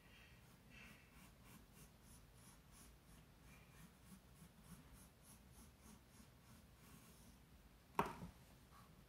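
Wooden pencil scratching across sketchbook paper in faint repeated strokes, about three a second. A single sharp tap about eight seconds in.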